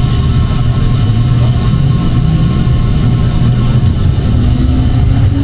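Tram running along its rails: a steady low rumble, with a faint whine rising in pitch near the end.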